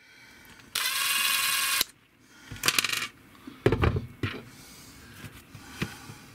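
A bright ringing sound effect lasting about a second near the start, then clatter and a few sharp knocks as tools and small blind fittings are handled on a tabletop, the loudest knock near the middle.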